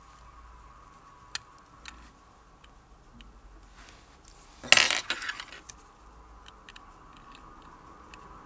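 Small metal watchmaking tools and parts handled on a workbench: a few light clicks, then a brief metallic clatter with a short ring about five seconds in, followed by faint ticks.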